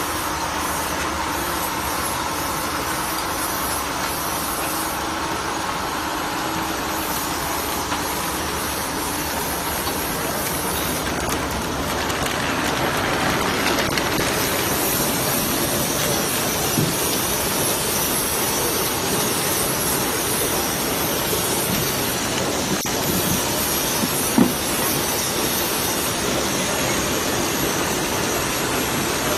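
Small snack packing machine with a rotary feed table running, giving a steady mechanical hiss and whir that grows a little louder about twelve seconds in. Two brief knocks come in the second half, the later one the loudest.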